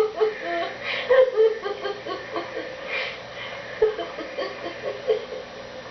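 A woman laughing in breathy, mostly airy bursts, with short pitched squeaks, several times over. The laughter tapers off toward the end.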